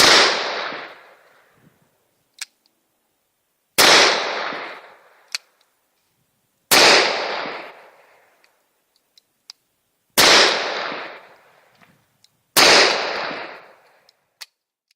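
Five gunshots fired one at a time, a few seconds apart, each followed by a long fading echo. Faint short clicks sound between some of the shots.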